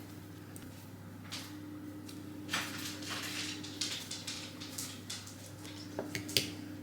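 Quiet kitchen handling noises: a few soft scrapes and rustles and a couple of short clicks over a steady low hum.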